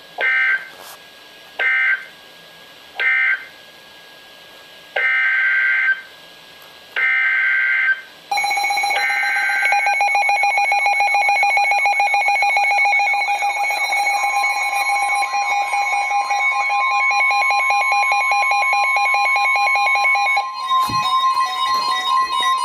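Emergency Alert System SAME data bursts, each a harsh warbling screech about a second apart: three short end-of-message bursts that close the previous flood warning, then three longer header bursts that open the next alert. From about eight seconds in, a steady buzzy electronic alert tone sounds. A second, higher tone joins it partway through, and the sound shifts again near the end.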